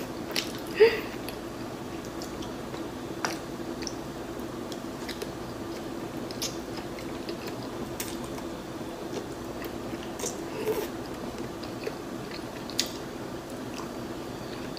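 Close-up mukbang eating sounds: chewing garlic noodles, with scattered small clicks from the mouth and chopsticks over a steady low hum.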